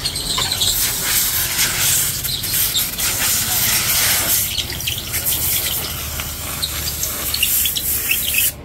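Compressed-air blow gun hissing loudly as it blasts dust out of a lorry's air-filter element, the jet wavering as it is moved over the filter, then shutting off abruptly near the end.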